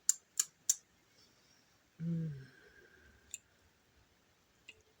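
Three sharp clicks in quick succession, then a short, low, falling hum of a voice about two seconds in, and two fainter clicks later.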